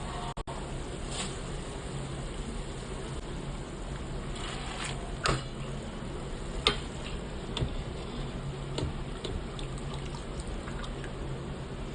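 Steady running or pouring water, with a few light clicks.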